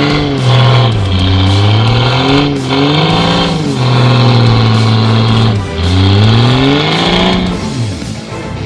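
Off-road SUV's engine revving hard in repeated surges, its pitch climbing and dropping about five times as the wheels spin in deep mud while the vehicle tries to claw its way through a bogged rut.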